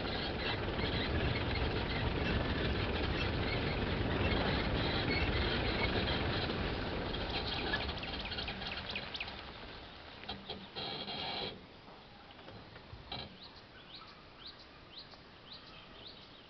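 Safari jeep driving along a rough forest track, its engine and road rumble dying away about two-thirds of the way through. After that, birds chirp against quiet forest background.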